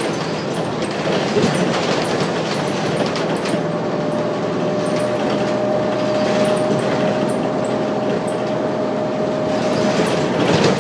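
Articulated bus heard from inside the cabin while moving: steady engine, drivetrain and road noise, with a steady whine that comes in about four seconds in and fades near the end.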